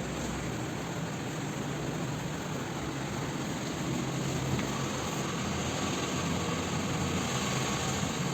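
Steady mechanical hum and hiss with no distinct cracks or knocks, growing slightly louder about halfway through.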